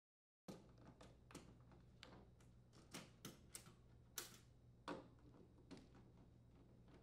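Near silence broken by a dozen or so faint, irregular clicks and taps: a nut driver and hands working the screws of a refrigerator's rear sheet-metal access panel.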